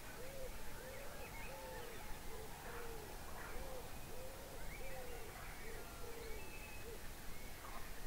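Countryside dawn birdsong: a steady run of low, rounded calls repeated roughly twice a second, with small birds chirping higher above them.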